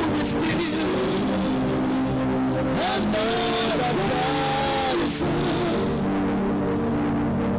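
Slow worship music: held keyboard chords that change now and then, with a wavering, sliding sung line in the middle.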